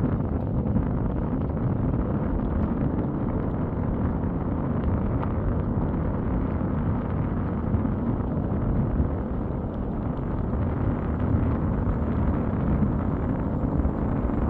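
Steady rumble of a vehicle driving, engine and road noise with no distinct events.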